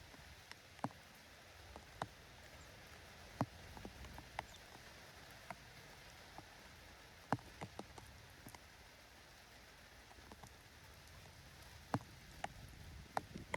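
Light rain: a faint steady hiss with irregular sharp taps of drops striking hard surfaces, about fifteen of them.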